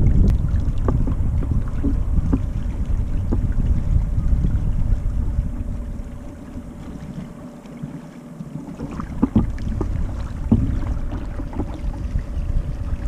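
Wind buffeting the microphone of a sailing kayak, with small water slaps and splashes against the hull. The wind noise eases off about halfway through and picks up again near the end.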